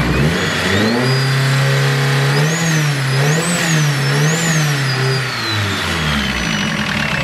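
Car engine revved from idle, held up with three quick throttle blips in the middle, then settling back to idle near the end; a high whine rises and falls with the revs. The engine is running on cable ties standing in for a snapped drive belt, turning the water pump and alternator.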